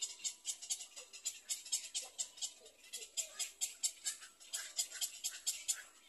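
Insect stridulation: a high, rasping pulse repeated evenly about five times a second, with faint lower chirps mixed in.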